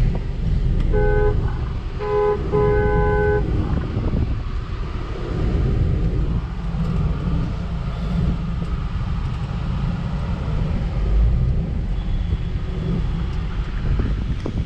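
A car horn honks three times in quick succession, about one to three seconds in, the last honk the longest. Under it runs the steady low rumble of the overhauled Volkswagen Vento petrol car being driven.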